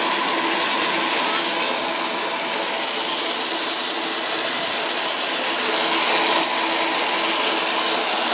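Power Wheels toy car's electric drive motor and gearbox running steadily at about 15 volts, which the potentiometer governor allows through the speed controller. It makes a steady whine over mechanical noise.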